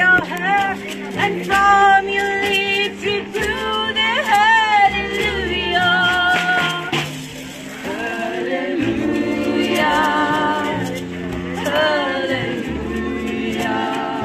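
Small acoustic band playing live: voices singing with vibrato over a baritone saxophone, a plucked upright double bass stepping from note to note, and a drum kit.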